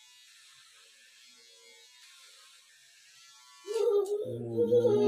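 A faint steady buzz, then about three and a half seconds in a small child bursts out crying loudly, the wail sliding up in pitch, while her hair is being cut.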